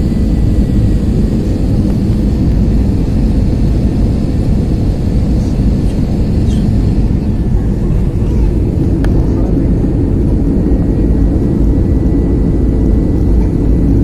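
Airliner cabin noise in flight: the jet engines and rushing air heard from inside the cabin as a loud, steady low drone, with a faint high whine over it.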